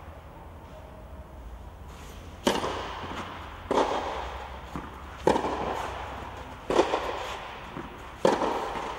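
Tennis ball struck with rackets in a rally, starting with a serve: five sharp hits about a second and a half apart, each echoing briefly in a covered hall.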